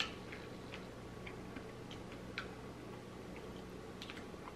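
Light clicks of chopsticks against each other and a plastic sushi tray as a roll is picked apart, a sharp click at the start and another about two and a half seconds in, with faint scattered ticks between, over a low steady room hum.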